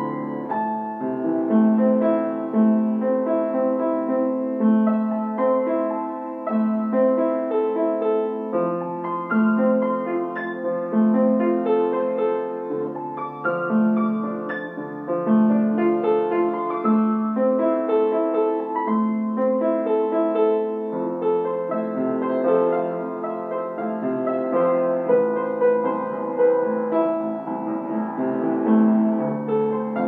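Solo piano music: a lower line of held notes changing every second or two under a moving melody, played at a steady level.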